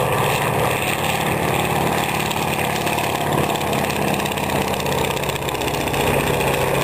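Piston engine of a replica Fokker Dr.I triplane running steadily as the aircraft flies past.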